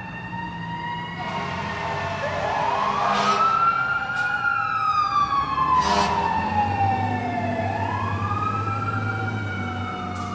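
Emergency vehicle siren wailing, rising and falling slowly, over steadier overlapping siren tones and an engine rumble. Three short noisy bursts cut through, a few seconds apart.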